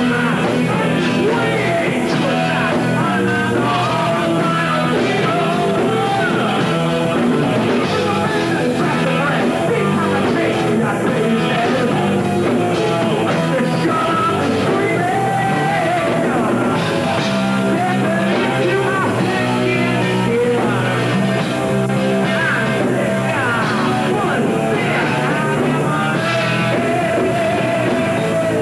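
Live metal band playing: distorted electric guitars, bass and drums, with a singer singing and shouting into a hand-held microphone.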